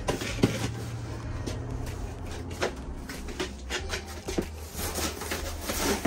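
Broom sweeping dry pigeon droppings and grit across a wooden loft floor: uneven scratchy brush strokes with a few sharper knocks against the wall.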